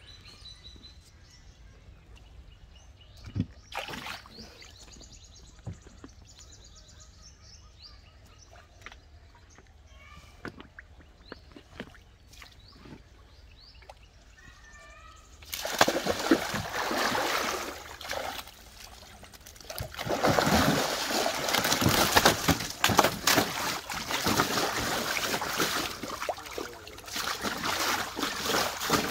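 Gentle water sounds as a cast net is drawn up out of the river, then, about halfway in, loud continuous splashing as big fish thrash in a water-filled tank aboard the boat.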